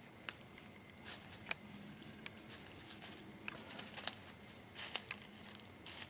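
Irregular soft clicks and short rustles, a few a second, over faint background hiss.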